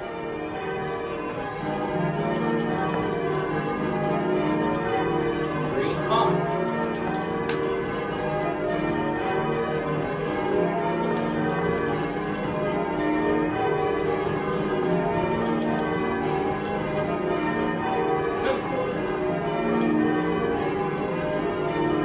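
A peal of church bells ringing continuously, many bells striking in quick overlapping succession. It fades in over the first couple of seconds.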